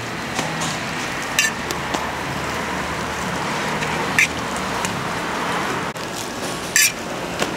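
Hotteok frying on an oiled steel flat-top griddle: a steady sizzle, broken three times by short sharp metal clinks as the hotteok press strikes the griddle.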